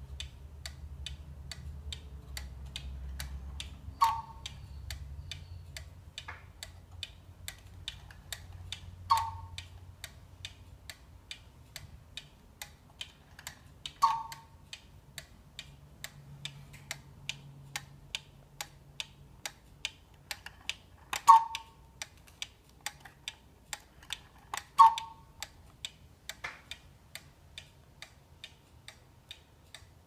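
German chain-driven cuckoo clock ticking steadily, with its cuckoo calling five times, one high-then-low "cuck-oo" each time, as the minute hand is pushed round to trip the call.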